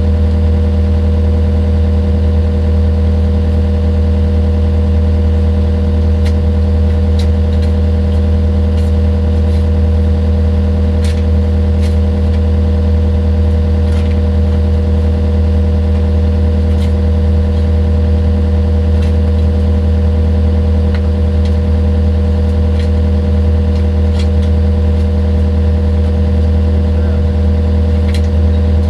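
Engine of a digging machine running at a steady speed: an unchanging low drone with a steady hum above it, and a few faint ticks and clatters now and then.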